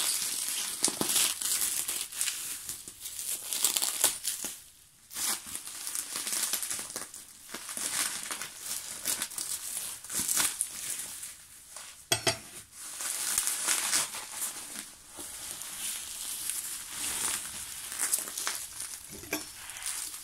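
Bubble wrap and plastic packaging crinkling and rustling as it is unwrapped by hand, in irregular handfuls. There is a short lull about five seconds in and a sharp click about twelve seconds in.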